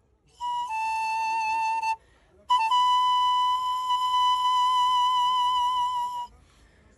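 Thirteen-pipe bamboo panflute played slowly: a short note that steps slightly down and is held for over a second, a brief pause, then one long held note of about three and a half seconds.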